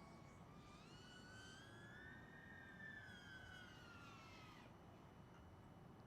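Faint, high whine of a 3-inch FPV quadcopter's brushless motors (T-Motor Pacer 1804 2400kv) flying at a distance. The pitch rises and then falls with the throttle, and the whine fades out about two-thirds of the way through.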